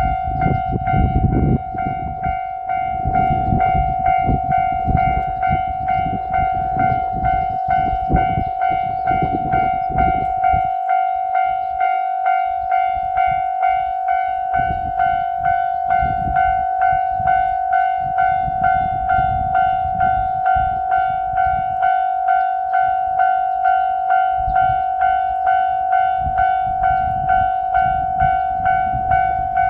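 Japanese railway level-crossing alarm ringing its steady, evenly repeated "kan-kan" tone, over the low rumble of a JR Shikoku 8000 series limited express electric train passing. The rumble thins out for a few seconds partway through, then returns while the bell keeps ringing.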